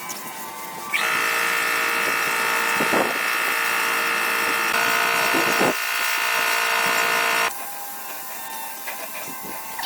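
A small electric motor runs at high speed with a steady whine. It switches on about a second in, shifts pitch slightly partway through, and stops abruptly about seven and a half seconds in.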